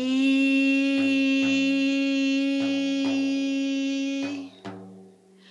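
A woman's voice holding one long, steady "shee", the Qigong healing sound meant to prevent overall sickness, sung into the head of a Remo Renaissance frame drum so the drumhead resonates with it. She taps a steady pulse on the drum throughout. The voice stops about four seconds in, leaving a couple of drum taps.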